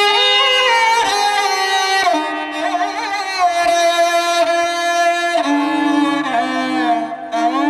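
Instrumental background music: a bowed string melody of long held notes that slide between pitches.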